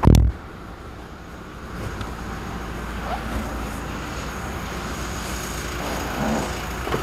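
A pickup truck door is slammed shut with one loud, heavy thump, then a steady low rumble continues underneath.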